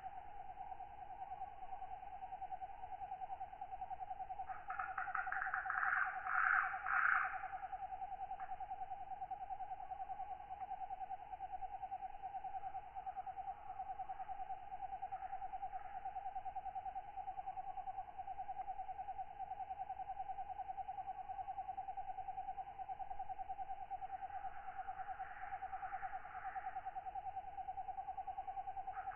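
Night insect chorus of katydids: a steady, rapidly pulsing trill runs throughout. Louder, higher raspy calls come twice, about five seconds in and again near the end.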